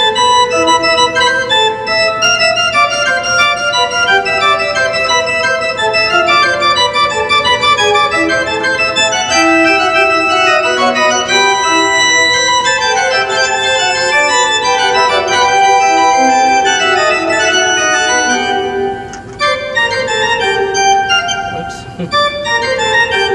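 C. B. Fisk tracker pipe organ playing on its Chair division principal chorus, in full, bright chords with running lines in several parts. There is a short break about three-quarters of the way through, then the playing resumes.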